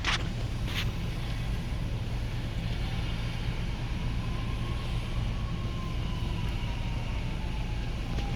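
Steady low hum of a vehicle engine running, with a faint whine that slowly rises and then falls.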